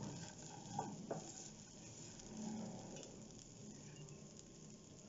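Faint sizzling of sprouted legumes frying in a nonstick pan, with a wooden spatula stirring and scraping through them in a few short strokes about a second in.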